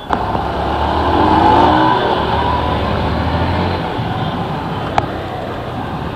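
Motorcycle engine pulling away and accelerating, its pitch rising over the first couple of seconds, then running steadily under way with road and wind noise.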